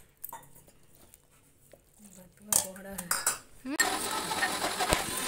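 A few metal clinks and knocks of a stainless-steel bowl being handled as batter is scraped out of it, about halfway through. They are followed by a steady rushing noise over the last part.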